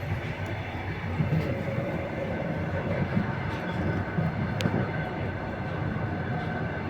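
Passenger train's wheels running over the rails, heard from inside the carriage vestibule: a steady low rumble with a few louder knocks about a second in and about three seconds in.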